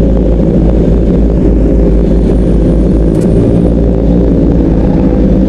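Motorcycle engines running steadily at riding speed in traffic, under heavy wind rush on the microphone.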